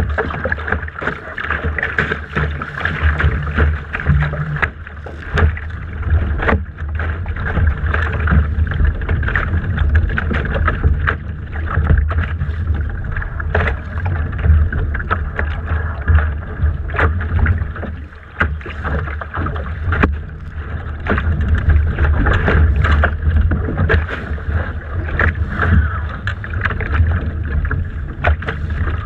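A Laser dinghy sailing through choppy water: water rushes and slaps against the hull, with sharp knocks now and then, over a steady low wind rumble on the deck-mounted microphone.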